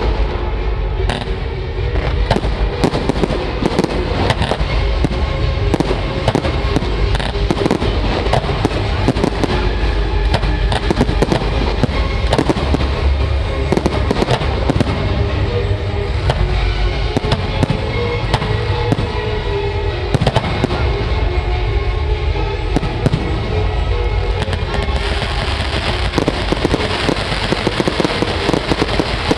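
Fireworks display: a continuous barrage of bangs and booming shell bursts, with crackling between them. From about 25 seconds in, a dense crackling hiss of crackle-effect shells takes over.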